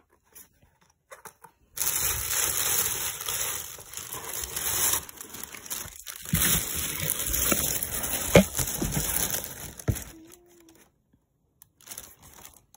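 Thin plastic carrier bag rustling and crinkling as hands handle a pizza box inside it, with a few sharp knocks near the end. The rustling starts about two seconds in and stops at about ten seconds.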